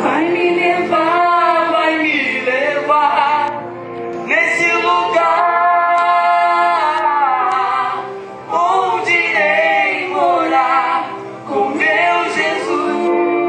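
Male and female voices singing a gospel worship song together, in sung phrases with short breaks between lines.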